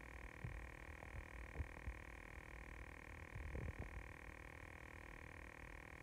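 52-inch Progress Lighting Builder ceiling fan running: a faint steady motor hum with a thin high whine, over irregular low thumps and crackle.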